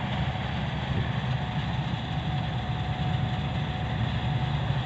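Combine harvester running steadily as it cuts rice: a constant low engine drone with a faint steady whine above it.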